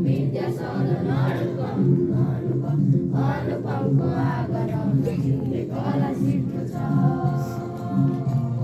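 A large group of schoolchildren singing the school song together in chorus.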